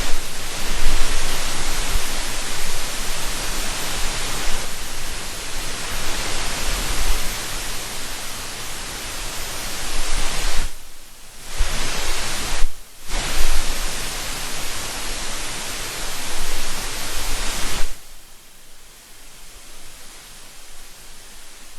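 A steady hiss over a low electrical hum, dropping out briefly twice near the middle and growing quieter for the last few seconds.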